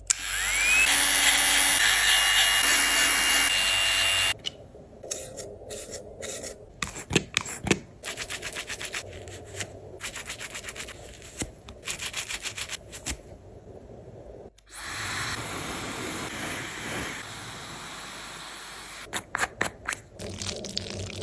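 Dog-grooming sounds in quick succession: a small motor spinning up and running steadily for about four seconds, then a long run of rhythmic rubbing strokes, like a brush worked through fur, then a steady hiss, and a few sharp clicks near the end.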